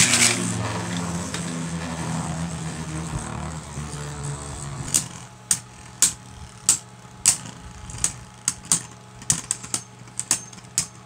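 Two Hasbro Beyblade Burst spinning tops, Cyclops C4 and Spryzen Requiem, in a plastic stadium: a loud launch clatter at the start, then a steady whir from the spinning tops that fades over the first few seconds. After that come sharp plastic clacks, about one or two a second and more frequent near the end, as the slowing tops knock into each other.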